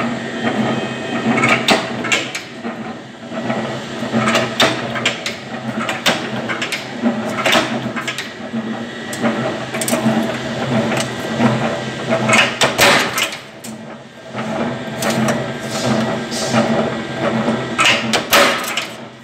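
Mechanical power press running with a steady hum from its flywheel drive, its ram and cutting die striking sheet metal in sharp clanks about once or twice a second at uneven intervals.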